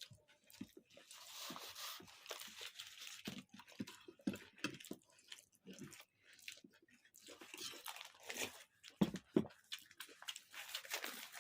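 Close-up chewing and crunching of food, with irregular crunches, smacks and mouth noises.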